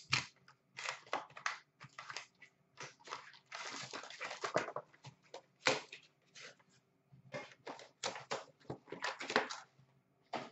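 A cardboard box of hockey card packs being opened and its foil packs handled: irregular rustling and scraping of cardboard and wrappers in short bursts, with a longer rustle about four seconds in.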